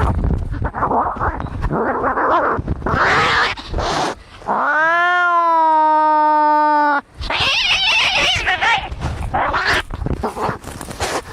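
Cats fighting: harsh hissing and spitting cries, broken by one long, steady yowl a little under halfway through, then more harsh screeching.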